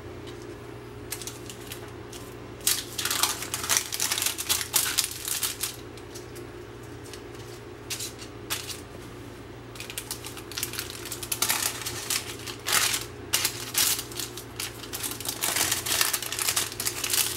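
Parchment paper crinkling and rustling in two spells of quick crackles as dried strawberry-rhubarb fruit leather is peeled from it and the paper is folded around the strips.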